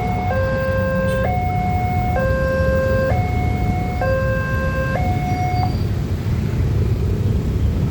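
Railway level-crossing warning alarm sounding a two-tone electronic signal that swaps pitch about once a second, then stops a little over halfway through, over the steady low rumble of waiting vehicles.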